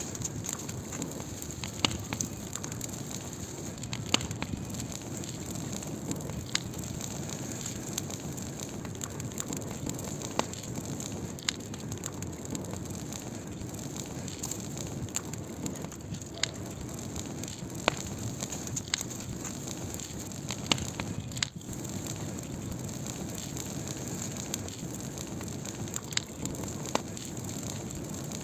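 Wood fire burning: a steady low rush of flame with sharp, irregular crackles and pops every second or two. The sound briefly drops away once about two-thirds of the way through.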